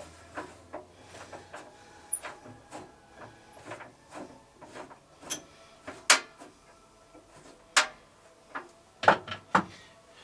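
A run of clicks and knocks as the bandsaw's wheel-cover doors are shut and fastened, with a few louder bangs in the second half, the loudest near the end.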